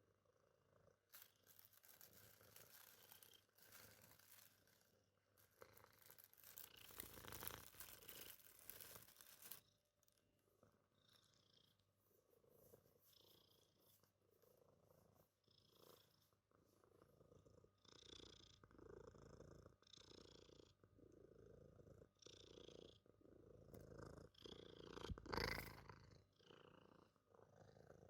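A cat purring quietly, close to the microphone, in a slow rhythm of in-and-out breaths about every second or so. A rustling haze fills the first several seconds, and there is a brief louder sound a little before the end.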